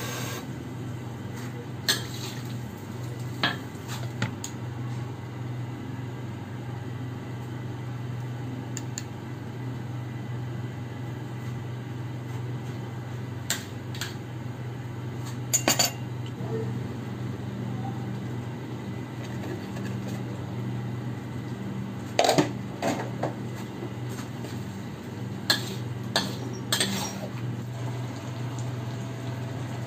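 A metal spatula and spoon clinking and scraping against a wok while stirring shrimp, in about a dozen scattered knocks, some in quick clusters, over a steady low hum.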